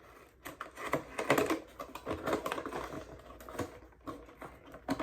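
A packaging box being handled and pried at to open it: a run of irregular small clicks, taps and rustles.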